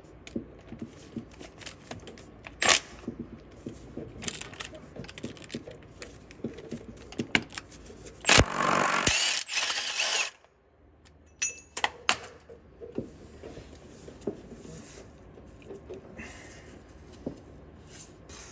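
Metal tools clinking and knocking against the bus's drive-shaft parts, with a loud burst of noise lasting about two seconds just past the middle.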